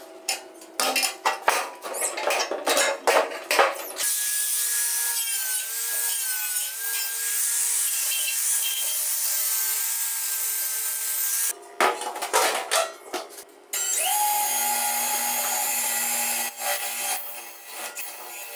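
Metalwork on a steel car wheel rim: a hand tool scraped against the rim in quick strokes for the first few seconds, then an angle grinder runs steadily with a wavering whine for about seven seconds. More quick scraping strokes follow, then a second power tool runs for a few seconds at a different pitch near the end.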